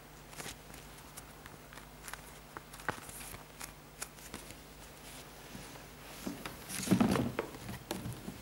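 Hands handling a leather sneaker insole and the sneakers: scattered light clicks and rustles, with a louder bump and rustle about seven seconds in as the shoes are handled.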